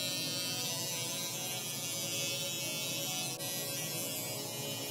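Electric hair clipper running with a steady buzz as it trims the hair along the back of the neck.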